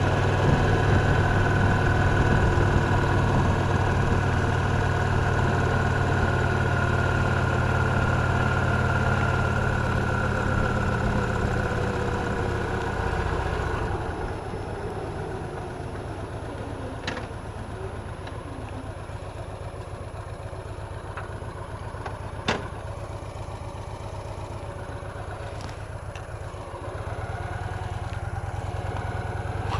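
A Victory Cross Roads Classic LE motorcycle's 1700 cc V-twin engine running under way. It is loud for the first half, then drops to a quieter, lower note a little before halfway, with one sharp click about three quarters through, and picks up again near the end.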